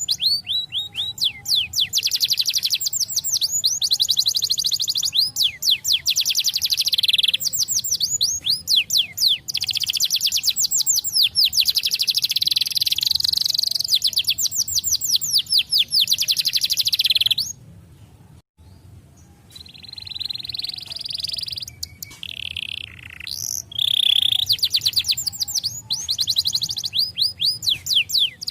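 Colour canary singing a long song of rapid trills, each a fast run of repeated down-sweeping notes. About two-thirds of the way through the song breaks off for a moment, then resumes with softer phrases and builds back into full trills near the end.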